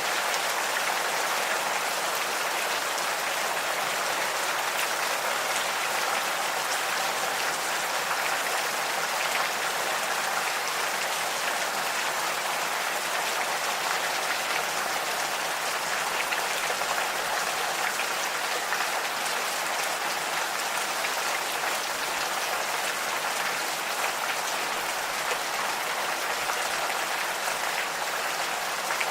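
Gentle rain falling steadily, an even patter with no thunder or birdsong standing out.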